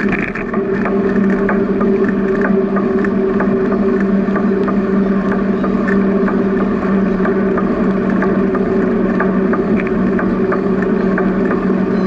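Bicycle in motion: a steady hum with wind and rolling noise, and light ticks about twice a second.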